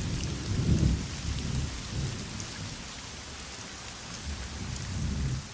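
Steady heavy rain hissing, with low rolls of distant thunder: one swelling about a second in and another near the end.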